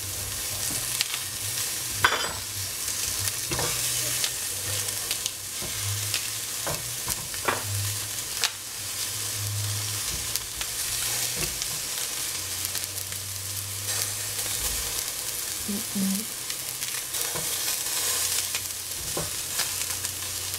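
Vegetables sizzling in oil in a stainless steel pot, a steady frying hiss broken by scattered taps and knocks as cauliflower florets are dropped into the pot by hand.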